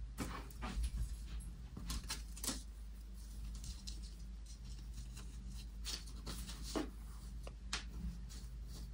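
Soft, scattered rustles of tissue paper and fabric as a folded sweatshirt and a cloth tote bag are set down and smoothed onto sheets of tissue paper while packing an order, over a low steady background hum.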